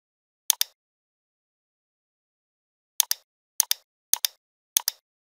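Computer mouse clicks: five clicks, each a quick double tick of button press and release. One comes about half a second in, and four more follow at roughly half-second intervals from about three seconds in.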